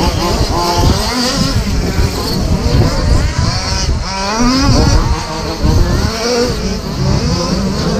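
Several radio-controlled short course trucks racing, their motors whining up and down in pitch as they speed up and slow down around the track.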